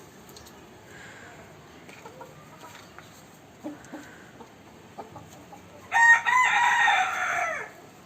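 A gavran (Indian desi) rooster crows once about six seconds in, a loud call of under two seconds that falls away at the end, with faint scattered clucking from the flock before it.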